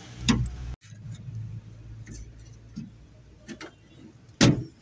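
Screwdriver clicking and knocking against the metal lock mechanism and linkage rods inside a Toyota HiAce door while the lock is being worked loose: a sharp click near the start, two lighter clicks past the middle and the loudest knock near the end. A low steady hum runs underneath and fades out about three seconds in.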